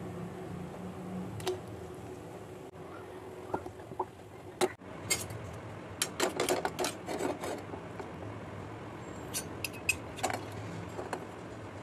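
Brass lamp pieces clinking, knocking and scraping against a steel pot as they are set into water and moved about: one sharp knock, then a busy cluster of clinks and scrapes, then a few more clicks near the end. A steady low hum runs underneath.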